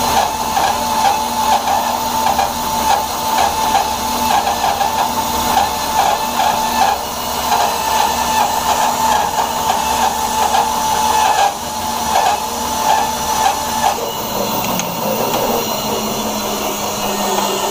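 Rikon bandsaw running with a half-inch, 4-tooth-per-inch Timber Wolf blade resawing a board, a steady machine noise with a wavering tone over it. The sound changes about fourteen seconds in, when the wavering tone stops.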